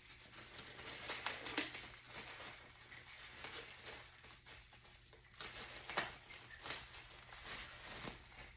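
Packaging being handled: plastic and cardboard rustling and crinkling, with a few sharp clicks about a second and a half in, about six seconds in, and near the end.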